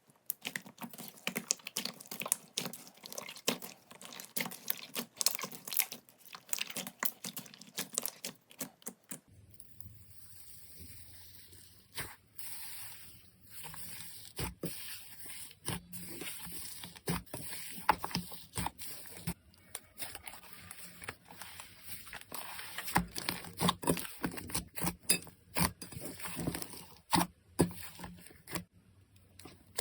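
Slime being handled close up: a dense run of small clicks and crackles, then, after a change of clip about nine seconds in, sparser wet squishing clicks and pops.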